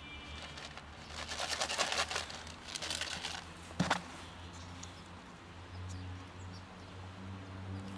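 Dry fallen leaves crackling and rustling under a cat's paws as it walks through them, in two short spells in the first half, with a single sharp click just before the middle. A low steady hum runs underneath.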